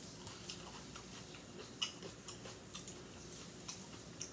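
Eating sounds: a fork working through a plate of salad and the chewing of crisp lettuce, heard as faint, irregular small clicks and crunches, with one sharper click just under two seconds in.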